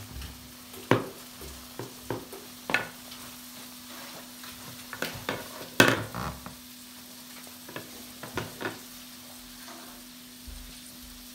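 Tissue paper crinkling and rustling, with scattered sharp taps and knocks on a plastic high chair tray, the loudest about six seconds in, over a steady low hum.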